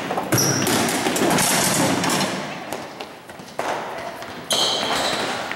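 A scuffle: several sudden thuds amid noisy shuffling, with short high squeaks, as people run and dodge between cafeteria tables and chairs.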